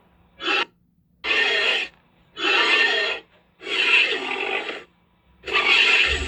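Wild boar sound effect: a run of harsh, breathy, unpitched bursts, one short and then four longer ones about a second apart, over a faint steady low hum.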